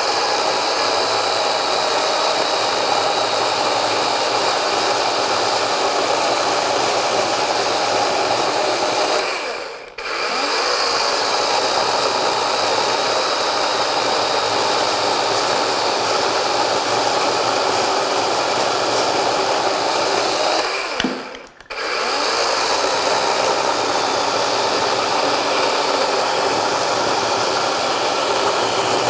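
DEWALT 12-inch XR 20V cordless chainsaw running under load, its chain cutting through wood. The running is steady and loud. The motor stops and restarts twice, about ten and twenty-one seconds in, winding down in pitch before the second stop.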